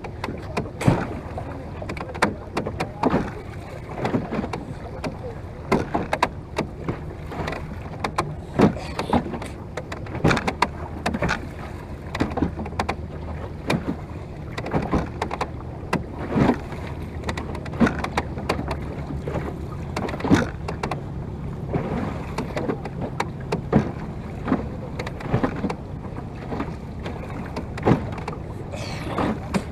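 Wooden Venetian rowing boat under way in choppy water: water slapping and splashing against the bow, with sharp knocks and splashes, the strongest about every two seconds, in the rhythm of the rowing stroke. A steady low hum runs underneath.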